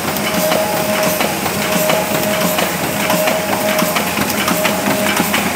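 Solna 132 single-colour sheet-fed offset press running: a steady mechanical clatter of rapid ticks, with a short whine that comes and goes at an even pace.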